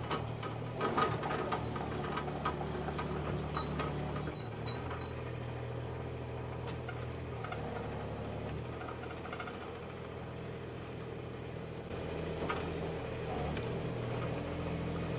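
Kubota KX41-3V mini excavator's diesel engine running under hydraulic load as the machine tracks and works its forklift attachment. The engine note shifts pitch several times as the load changes, with several clanks in the first few seconds.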